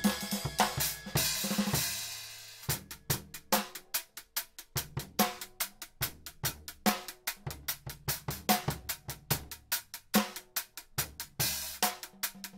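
Background music with a steady, drum-heavy beat.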